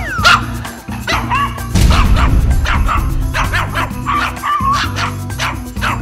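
Small white dog barking loudly in a rapid run of high yaps, about three a second. This is the problem barking its owner calls far too much, set off by any sound.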